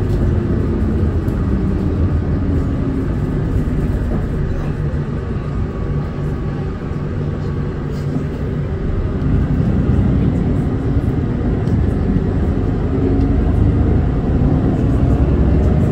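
Hino Blue Ribbon City Hybrid city bus running, heard from inside the cabin: a steady low rumble of drivetrain and road noise that eases a little around the middle and builds again in the second half.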